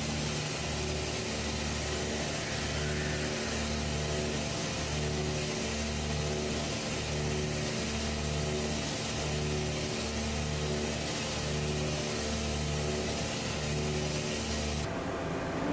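Background music with a steady pulsing bass beat, about two beats a second, over an even hiss that cuts off shortly before the end.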